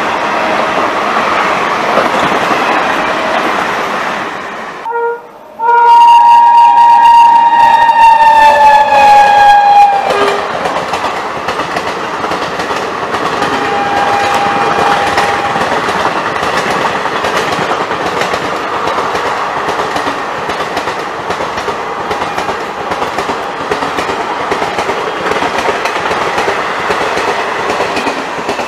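Indian Railways express trains passing at speed, a steady rumble and clatter of wheels and coaches. About five seconds in a locomotive horn gives a short double toot, then a long blast of several tones that falls slightly in pitch and is the loudest part. A fainter horn sounds around fourteen seconds in.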